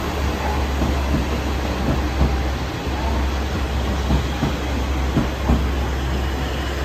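JR West KiHa 40-series diesel railcars rolling slowly past, the diesel engines running with a steady low drone and the wheels thumping irregularly over rail joints.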